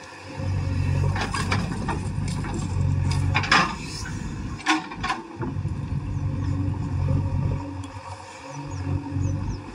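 JCB backhoe loader's diesel engine running under changing load as the backhoe digs, its note rising and falling. Sharp clanks and scrapes of the bucket in the soil and stones come in the first half.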